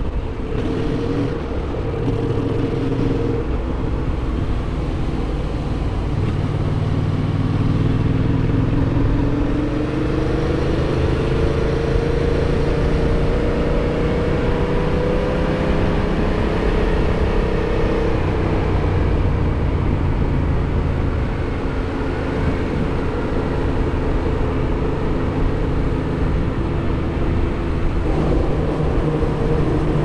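Yamaha MT-07's parallel-twin engine running while cruising at around 40 mph, mixed with a steady rush of wind noise. The engine note rises slowly through the middle as the bike picks up speed, then holds steady.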